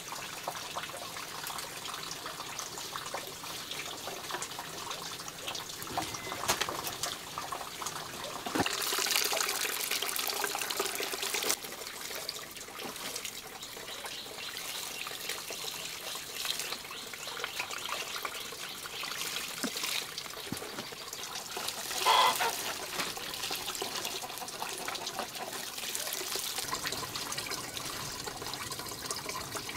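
Water running and trickling, with scattered small clicks and knocks. It grows louder for about three seconds roughly a third of the way in, and a short pitched sound stands out about three-quarters of the way through.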